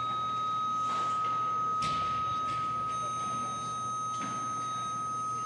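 Weightlifting competition's 30-second clock buzzer stuck on, sounding one steady high tone without a break: the clock has malfunctioned and will not shut off.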